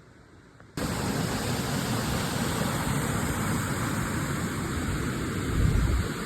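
Strong headwind blowing on the microphone: a loud, steady rushing noise that starts abruptly under a second in, swells briefly near the end and cuts off abruptly.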